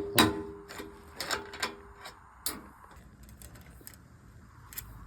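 Metal striking metal: a handful of sharp clanks in the first couple of seconds, the first few leaving a brief ring, followed by lighter, scattered taps and ticks.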